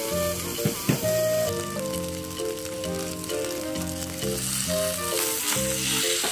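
Ribeye steak sizzling in a hot cast-iron skillet, a steady frying hiss that grows louder about a second and a half in, with background music playing over it.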